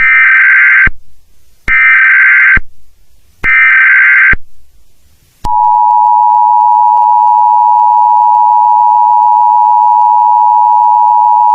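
Emergency Alert System broadcast tones: three short, shrill bursts of SAME header data, each about a second long and about a second apart, then about five seconds in the steady two-tone EAS attention signal starts and holds.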